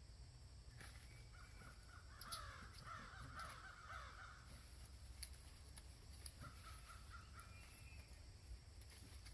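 Faint harsh animal calls: a cluster in the first half and one more about seven seconds in, over a low steady rumble.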